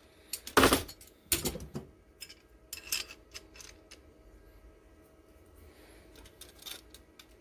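Steel pliers being handled on a workbench: metal clicks and clinks, with the sharpest knock about half a second in, a few more over the next two and a half seconds, and fainter taps near the end.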